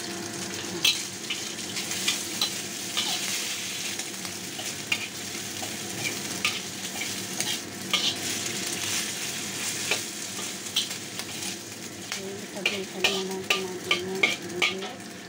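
Diced ham sizzling in hot oil in a wok, with a metal spatula scraping and tapping against the pan as it is stirred. The taps come quicker near the end.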